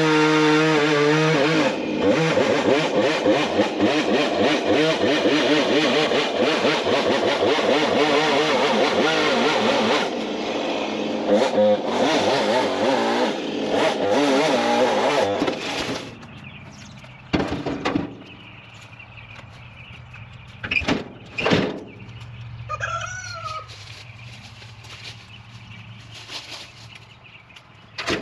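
Chainsaw running at high revs and cutting into a large oak, its pitch wavering as it works under load, then stopping about sixteen seconds in. A few sharp knocks follow in the quieter stretch.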